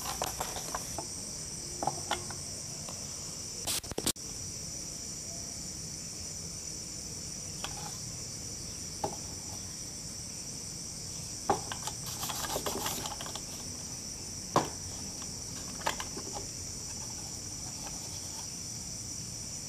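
Steady high-pitched chirring of insects, like crickets, throughout. Occasional short clicks and knocks from wooden casing pieces and a battery pack being handled on a workbench.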